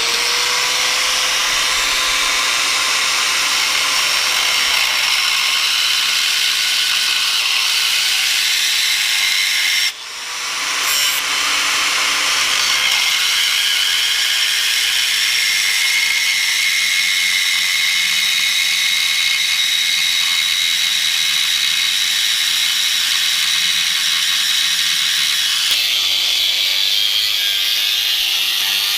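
Angle grinder grinding steel off a control arm: a steady high whine over harsh grinding noise. It lets off briefly about ten seconds in and spins back up, and its whine drops lower near the end.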